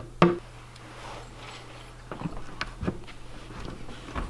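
Aviation snips cutting through the bottom of a plastic bucket: a few sharp snaps at uneven intervals as the blades close through the plastic.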